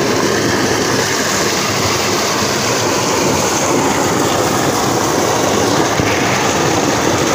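Tubewell outlet pipe running at full flow, a heavy jet of water gushing into a concrete tank with a loud, steady rush.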